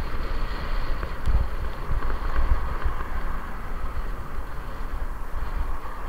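Wind buffeting the microphone of a camera on a moving bicycle, in uneven low gusts, over a steady hiss of road and traffic noise.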